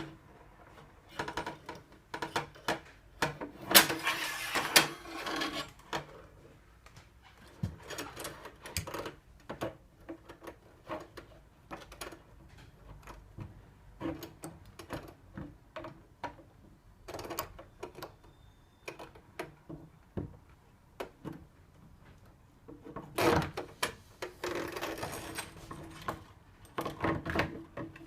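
Letterbox tool with a rubber gripper attachment being worked through a door's letterbox to reach the Yale latch: irregular clicks, knocks and scrapes of metal against the letterbox and door. The handling gets louder and busier a few seconds in and again near the end.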